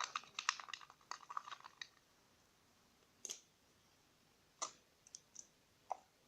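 Small plastic clicks and crackles from a squeezed glue bottle being handled: a quick run of them in the first two seconds, then a handful of scattered single clicks.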